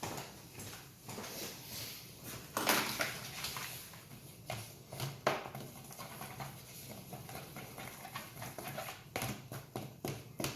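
Spatula stirring and scraping melted chocolate in a plastic bowl, making irregular scrapes and light taps, with one louder scrape about three seconds in.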